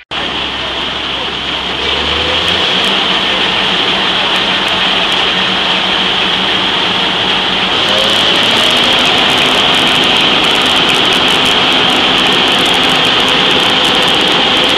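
John Deere combine harvester running, its engine and belt-driven machinery making a loud, steady mechanical noise with a high whine over it. It gets louder about two seconds in and again about eight seconds in.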